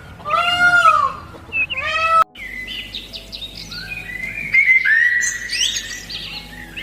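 A cat meowing loudly, one long meow and a shorter one, then an abrupt cut to several small birds chirping and tweeting.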